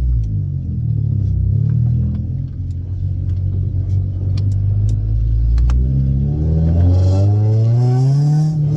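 Honda Civic EK engine and full header-back exhaust, its leaks freshly repaired, running low and steady with a few light clicks, then revving up with a rising pitch from about six seconds in as the car accelerates.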